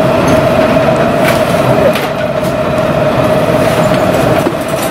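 Loud, steady mechanical drone with a constant hum running through it.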